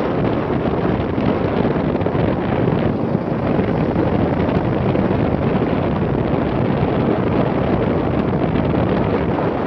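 Steady wind rush on the microphone over the running noise of a moving vehicle.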